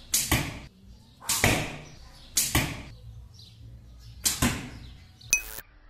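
Four arrow shots from a Turkish/Asiatic-style bow made from a bamboo cutting board. Each is a sharp snap of the string on release, followed about a fifth of a second later by the thud of the arrow striking the target. Near the end there is one short, different click with a high ringing tone.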